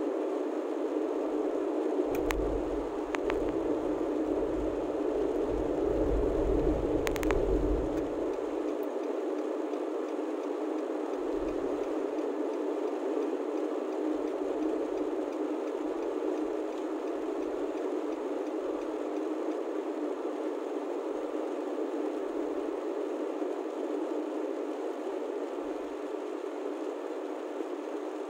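Road noise inside a moving car's cabin: a steady rushing hiss, with a deeper rumble for several seconds near the start and a few faint clicks.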